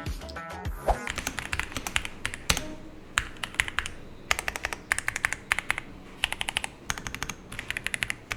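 Typing on an AJAZZ AK980 mechanical keyboard with double-shot PBT keycaps: quick runs of keystroke clacks separated by short pauses.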